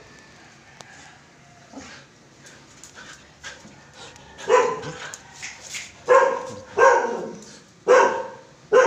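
Excited Siberian husky barking in greeting: a fairly quiet few seconds, then about five loud barks in quick succession from about halfway through.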